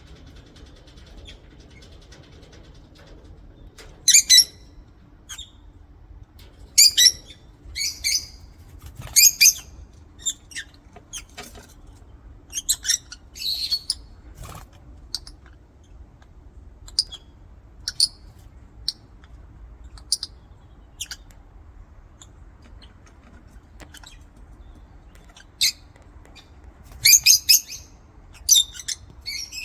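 Lovebirds calling in short, shrill chirps and squeaks that come in irregular bursts, with louder clusters now and then and quieter single chirps between them.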